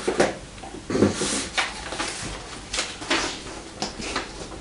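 Objects being moved about and set down on a table: a string of short knocks and scrapes, a few a second apart.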